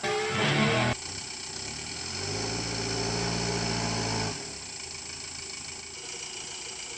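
Vehicle engine running steadily. It grows louder and fuller about two seconds in, holds, then drops back to a quieter idle about four seconds in.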